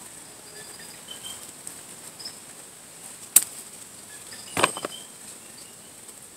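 Tomato plants rustling as they are handled, with a sharp snip of garden scissors about three and a half seconds in and a louder rustle and snip about a second later. Faint short high chirps sound in the background.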